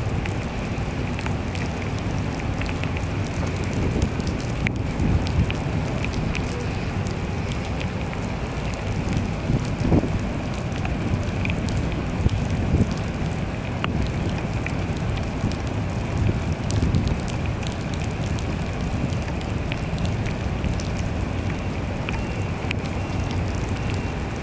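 Heavy rain falling steadily, with scattered close raindrop ticks over an even hiss and a low rumble underneath.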